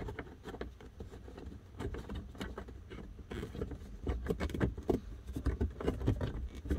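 Scattered small clicks and scrapes of fingers backing out and turning a screw in a dash speaker's plastic mount, over a low rumble.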